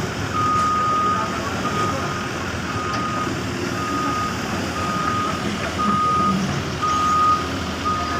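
A reversing alarm on heavy equipment beeping a single steady tone about once a second, over the steady rumble of diesel engines running.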